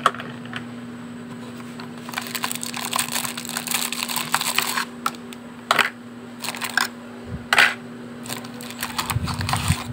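Small makeup items being handled and sorted into a plastic organizer: a few seconds of rummaging and rustling, then several sharp clicks and knocks of items set down. A steady low hum runs underneath.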